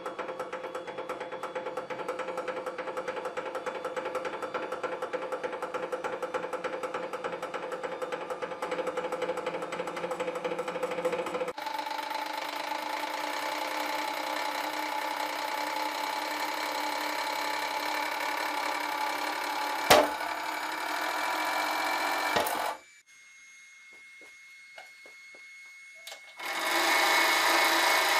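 Hydraulic press running under load as its ram crushes a solid steel bar: a fast, even rattling pulse that turns into a steadier machine whine about twelve seconds in. A sharp crack comes about twenty seconds in, with a smaller one shortly after, then the press stops suddenly. It runs again briefly near the end as the ram lifts.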